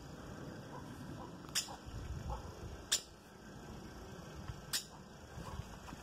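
A bird's sharp alarm calls, three short high notes about a second and a half apart, from a parent bird agitated by someone near its nest. A low rumble on the microphone about two seconds in.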